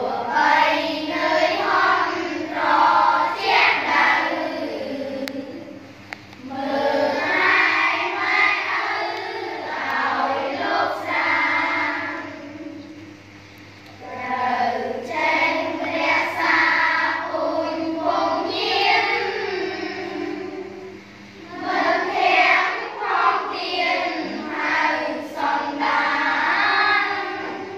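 A class of schoolchildren chanting a Khmer recitation poem in unison, in long phrases with short pauses for breath between them.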